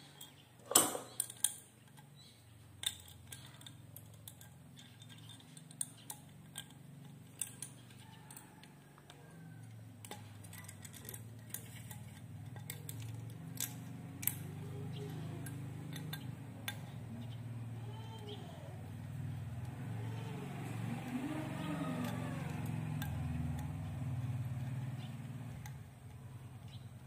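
Small metal clicks and clinks as a hex key and fingers work the screws of a Ka-band VSAT transceiver's metal feed flange, with one sharp clink about a second in. A low rumble swells from about ten seconds in and drops away near the end.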